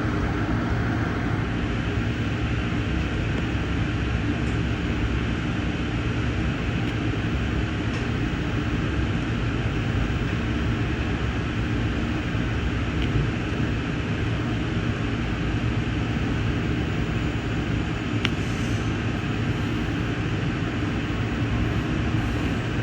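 Steady ride noise of a moving Amtrak passenger train heard from aboard: an even low rumble of wheels on rail, with a faint click about 18 seconds in.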